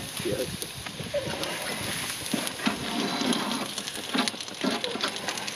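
Water sizzling on the hot flat griddle plate of a gas barbecue grill as it is scrubbed with a grill brush and paper towel, with repeated scraping strokes and clicks.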